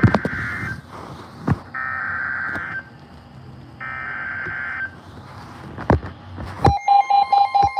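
Emergency Alert System SAME header: three bursts of warbling digital data tones, each about a second long and about a second apart, with a few sharp clicks of static. About seven seconds in, the steady two-tone attention signal starts, announcing a new alert.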